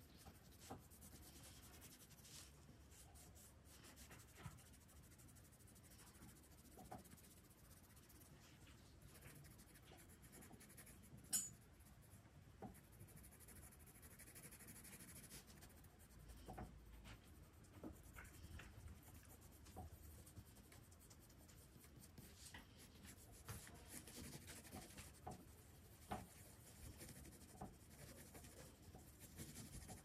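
Faint scratching of a pencil drawing and shading on paper, with scattered light ticks and one sharp click about eleven seconds in.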